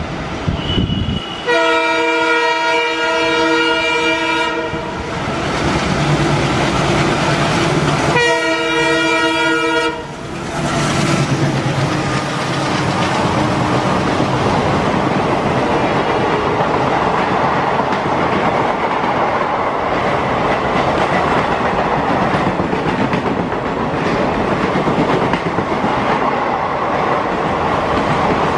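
Indian Railways locomotive horn sounding two blasts, a longer one of about three seconds and then a shorter one of about two seconds. The steady rumble and clatter of a passing train's wheels on the rails follow.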